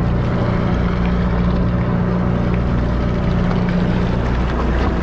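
Sportfishing boat's engine running with a steady low hum, over water washing along the hull.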